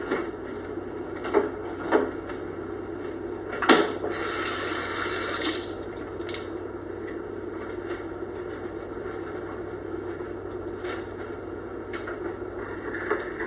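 Kitchen tap running for about a second and a half, a few seconds in, as hands are washed at the sink. Before it come a few sharp knocks of kitchen items, and a steady low hum runs underneath.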